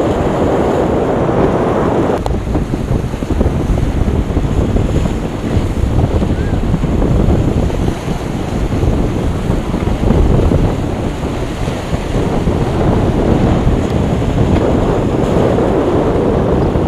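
Strong wind buffeting the microphone as a steady low rumble, over the wash of waves breaking at the inlet, swelling at the start and again near the end.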